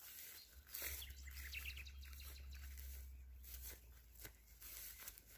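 Faint bird chirping, a quick run of short high notes about a second and a half in, over a low rumble on the microphone and soft rustling in grass.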